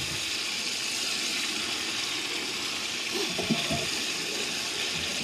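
Steady sizzling from a hot skillet on a portable gas camp stove.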